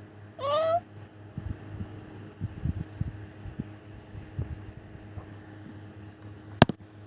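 A kitten gives one short mew that rises in pitch about half a second in. Soft low knocks follow, and there is a single sharp click near the end, over a steady low hum.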